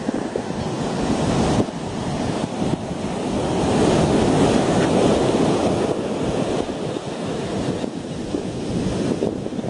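Heavy storm surf: waves breaking and rushing ashore, swelling to their loudest about halfway through and then easing, with wind buffeting the microphone.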